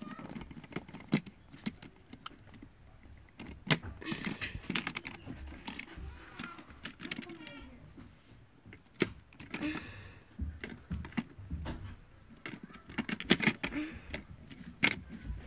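Plastic toy parts clicking and rattling as they are handled: a die-cast toy car being set into a Hot Wheels playset and its plastic crane arm being moved, with irregular sharp clicks.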